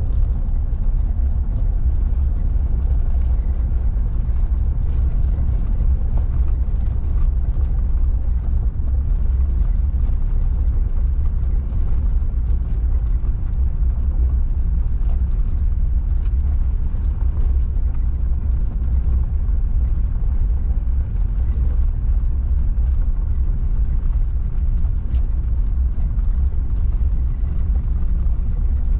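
Pickup truck driving on a forest service road: a steady low rumble of engine and tyres, with faint scattered ticks and rattles.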